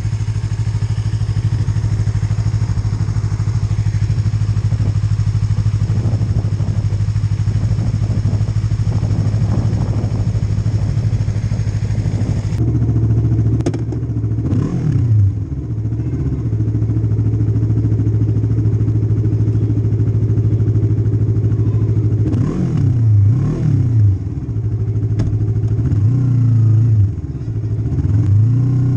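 Yamaha MT-03's parallel-twin engine idling steadily through an Arrow Pro Race slip-on exhaust. After a cut about twelve seconds in, it idles on with several quick throttle blips whose pitch rises and falls.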